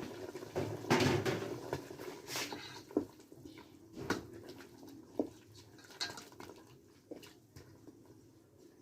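Scattered light knocks and clicks of kitchen utensils against a cooking pot, growing fainter over the few seconds.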